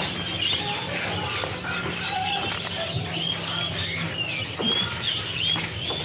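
Many caged songbirds chirping and whistling at once, short overlapping calls from several birds, over a low steady hum.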